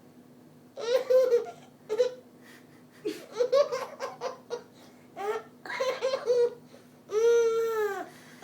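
Young child laughing and babbling in several short bursts, ending in one longer drawn-out laugh near the end.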